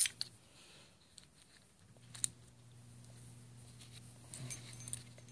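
A few faint, sharp metal clicks and ticks as small differential gears and shims are handled. A low steady hum comes in about two seconds in.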